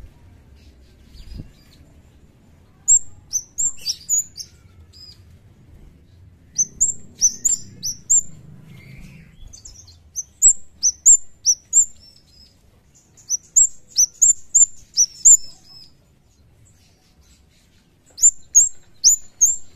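Scarlet-headed flowerpecker (Dicaeum trochileum) calling: sharp, very high, down-slurred chirps given in five quick runs of several notes, with short pauses between the runs.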